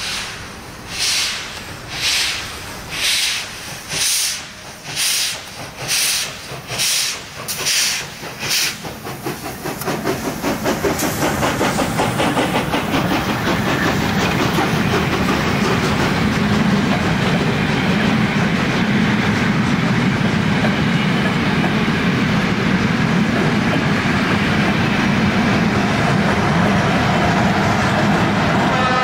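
Steam locomotive pulling away with loud exhaust beats about once a second, quickening slightly. About ten seconds in, the beats give way to the steady rolling noise and wheel clatter of its coaches passing close by.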